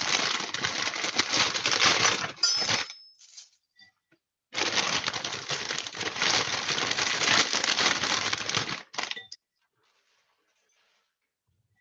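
Dried noodle sheets being snapped and broken up into a bowl: two long bouts of dense crackling and cracking, the second stopping about nine seconds in.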